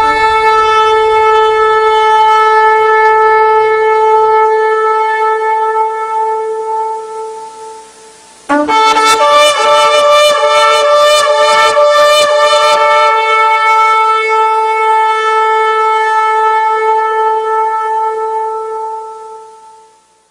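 Two long horn blasts. Each holds one steady note and fades away. The second starts sharply about eight seconds in and wavers in pitch for a few seconds before settling.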